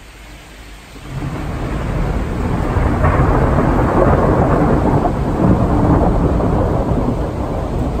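Thunder rumbling over heavy rain, building over the first couple of seconds and then staying loud.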